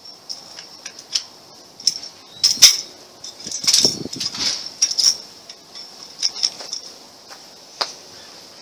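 Sections of a shock-corded tent pole, which the owner takes for aluminum, clicking and clinking together as they are pulled out and snapped into place. The clicks come irregularly and are loudest about midway.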